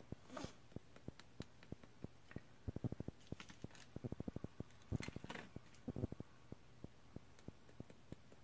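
Faint handling of small makeup containers: runs of quick light clicks with a couple of brief rustles, one a little past the start and one about five seconds in.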